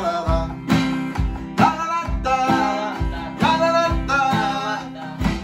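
Acoustic guitar strummed along with an electronic drum kit keeping a steady rock beat, the kick drum landing about twice a second.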